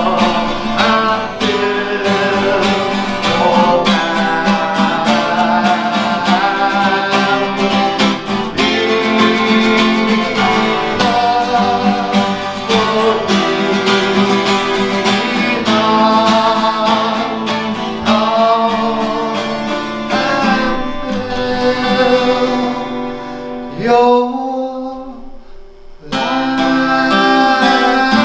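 Acoustic guitar strumming chords. The playing falls away almost to a pause about 24 seconds in and starts again two seconds later.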